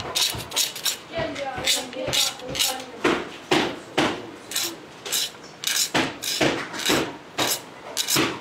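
Knife carving a wooden spoon by hand: the blade shaves the wood in short scraping strokes, about two a second.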